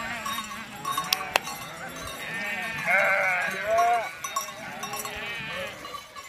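Flock of sheep bleating, several overlapping wavering calls, loudest in the middle. Two sharp clicks about a second in.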